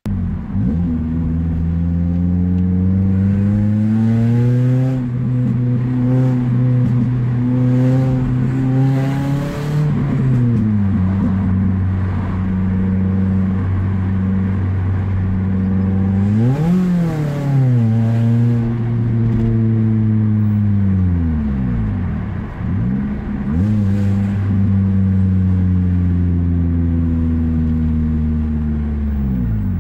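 Toyota Celica Mk7's 1.8-litre four-cylinder engine heard from inside the cabin, with its intake butterfly valve removed and a modified exhaust. Its pitch climbs under acceleration and drops at each gear change. About halfway through the revs rise and fall quickly, and near the end they fall away as the car slows.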